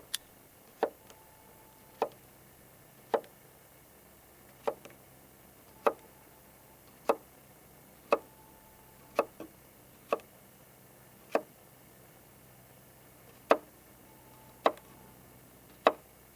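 Knife chopping vegetables on a cutting board: single sharp cuts about once a second, at an uneven pace.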